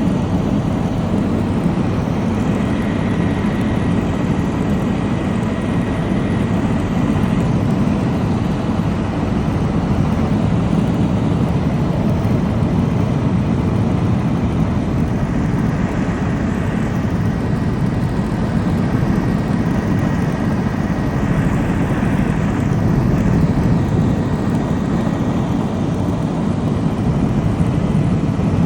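Helicopter engine and rotor noise, a loud steady drone with a faint high whine over it.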